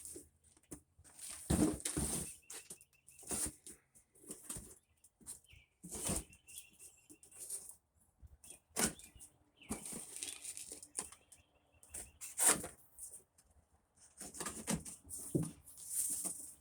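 Packaging being rustled and pulled apart by hand as a parcel is unpacked, in irregular bursts with a few sharp knocks.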